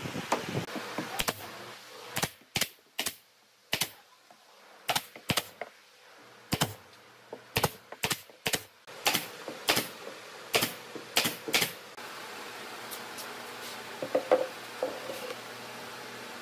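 A run of sharp, irregular taps and clicks, about twenty in the first twelve seconds. Then a steady hiss sets in, with a brief cluster of softer knocks near the end.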